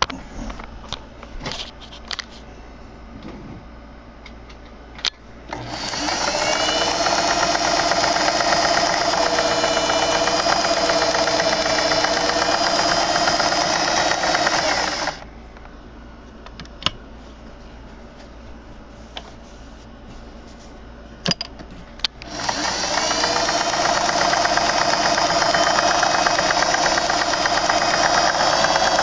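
Singer 401A Slant-O-Matic sewing machine stitching fabric in two long steady runs, each speeding up as it starts. Between the runs come a few sharp clicks and knocks.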